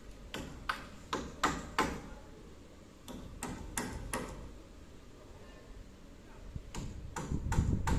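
Hammer blows driving nails into timber purlins on roof rafters. There are sharp strikes in three runs: five quick ones, then three, then four more near the end.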